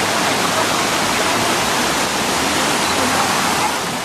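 Loud, steady rush of falling and flowing water at Düden Waterfall, easing slightly near the end.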